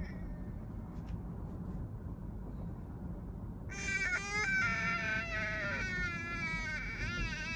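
Infant crying in a rear-facing car seat: after a few seconds of only the car's steady low rumble, a long wailing cry starts about halfway through, breaking off briefly a couple of times.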